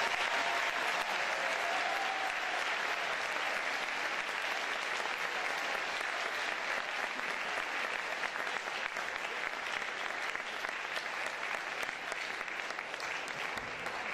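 A large audience applauding in an auditorium, the clapping dense and steady, easing slightly toward the end.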